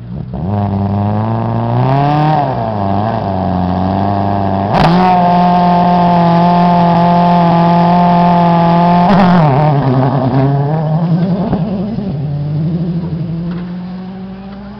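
Rally car engine revving at the start line, then held at a steady high rev for about four seconds. About nine seconds in the pitch drops as the car launches, and the engine note climbs again and fades as it pulls away up the stage.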